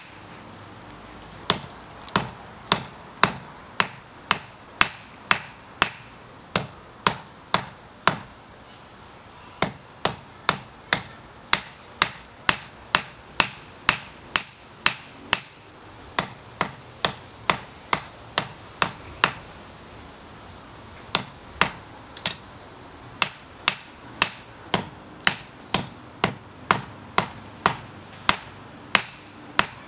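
Hand hammer striking red-hot coil-spring steel on an anvil, forging out a knife blade. The blows come about two a second, each with a ringing ping, in runs broken by a few short pauses.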